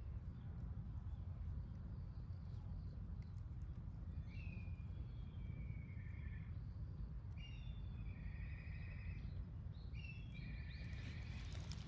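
Short trilled bird calls, three bursts from about four seconds in, over a steady low rumble.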